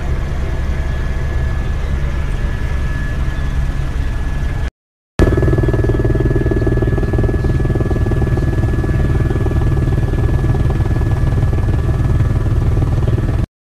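Helicopter in flight heard from inside the cabin: a loud, steady rotor and engine drone with a thin, steady high whine. The sound cuts out for about half a second around five seconds in, then resumes as before.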